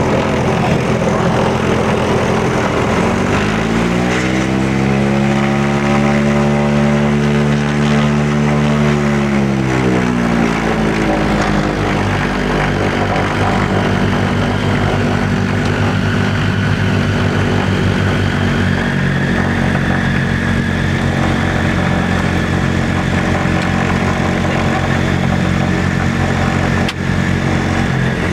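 Britten-Norman BN-2 Islander's twin engines and propellers running at taxi power, heard from inside the cockpit. About three seconds in the engine note rises, holds for several seconds, then drops back after about ten seconds and runs steady at the lower speed.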